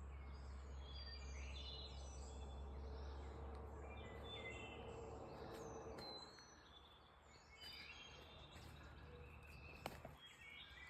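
Faint birdsong: several small birds chirping and whistling in short calls over a quiet background, with a low steady hum that fades out about halfway through and a single click near the end.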